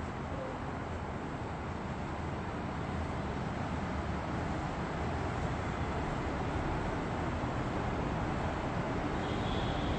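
Steady low urban background noise, a distant traffic hum, growing slightly louder toward the end.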